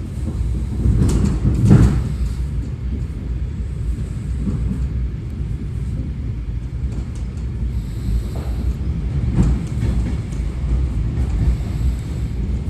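Suburban electric train running, heard from inside the carriage: a steady low rumble with a few sharp knocks, the loudest about a second or two in.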